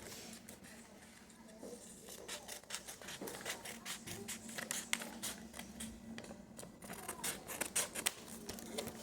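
Scissors snipping open a homemade fidget-toy package: a run of short, sharp cuts and crinkles that come thicker over the last few seconds.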